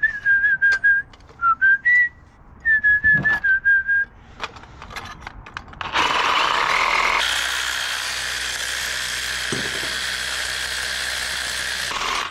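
A person whistles a tune in short notes. About six seconds in, a power tool starts and runs steadily for about six seconds, then stops.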